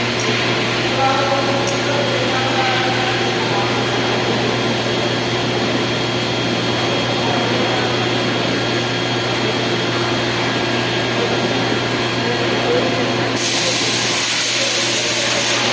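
Air conditioner with a squeaking-noise problem, running with a steady hum and whirring; a brighter hiss comes in near the end.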